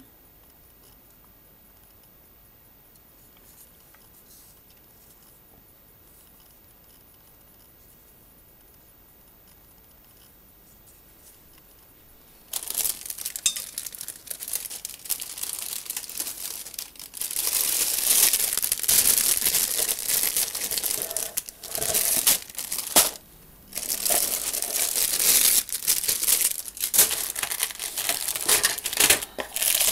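Quiet room tone for about twelve seconds, then clear plastic bags around the model kit's plastic sprues crinkling and rustling loudly as they are handled, with a brief pause near 23 seconds.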